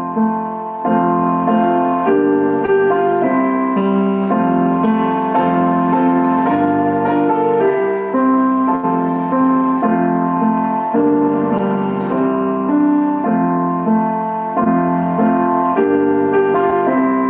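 Piano playing a slow worship song, its chords changing every second or so.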